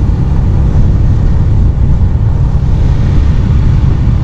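Motorcycle riding at road speed: a loud, steady low rumble of wind buffeting the microphone over the bike's running noise.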